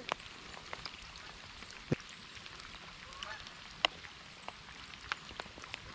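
Light rain: scattered sharp taps of drops landing close by over a soft hiss of rain on water, with a faint rising call about three seconds in.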